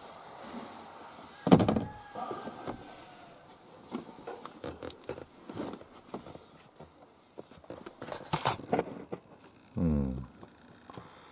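Plastic interior trim panel of a minivan's sliding door being handled and pressed back into place. There is a loud thump about a second and a half in, scattered clicks and knocks of plastic clips, a sharp knock about eight seconds in, and a short low rubbing creak shortly after.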